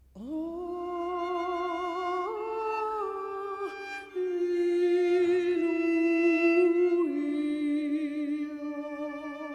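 A woman singing solo into a microphone. She swoops up into her first note, then holds long notes with a wide vibrato, stepping up in pitch after about two seconds and down again near the end.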